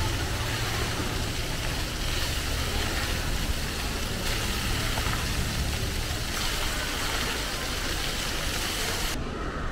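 Outdoor road traffic: a steady low rumble of passing vehicles under an even hiss, which starts and cuts off abruptly.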